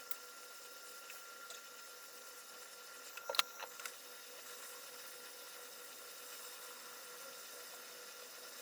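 Small tool clicks and taps during soldering work on a car ECU circuit board: a short cluster of sharp clicks about three and a half seconds in, over a faint steady hum with a thin high whine.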